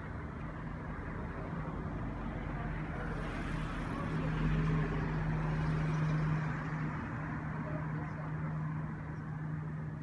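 A car driving past close by on the road over the dam, its noise swelling from about four seconds in and fading after six and a half, over steady outdoor traffic noise with a low hum.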